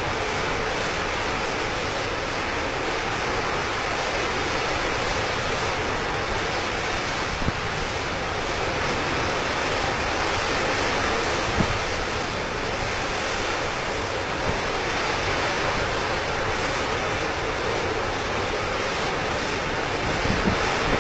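Steady roaring rush of a burning oil-well blowout, gas and flame jetting uncontrolled from the well, with a few faint knocks.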